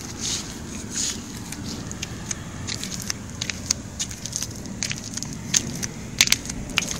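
Scattered light metallic clicks and taps of brake parts and tools being handled, with a few louder knocks a little after five seconds in and two brief hisses near the start.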